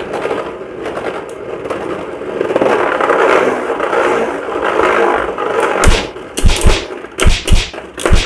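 Two Beyblade Burst tops, Tempest Dragon and Choz Achilles, spinning in a plastic stadium with a steady scraping whir. From about six seconds in they clash again and again in sharp clacks, six in the last two and a half seconds.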